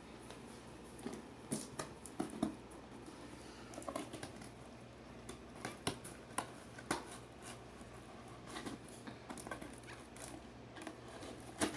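Faint, scattered clicks and rustles of a cardboard box and plastic packaging being handled and worked open.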